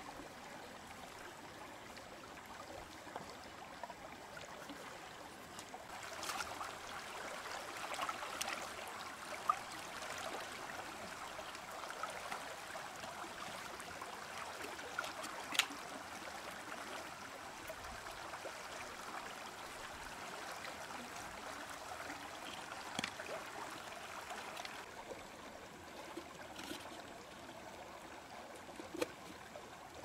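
Shallow stream trickling steadily over rocks, with a few sharp clicks from a knife working at freshwater mussel shells.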